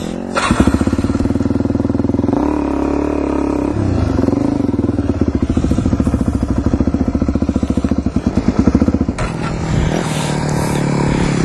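Suzuki DR-Z400E dirt bike's single-cylinder four-stroke engine running under way, its pitch shifting twice with throttle changes early on. Past the two-thirds mark the engine note eases off as the bike slows down.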